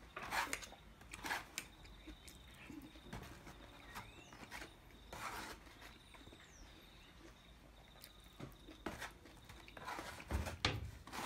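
Fork and knife scraping and clicking against a polystyrene foam takeaway container as food is cut and scooped up, in scattered short strokes.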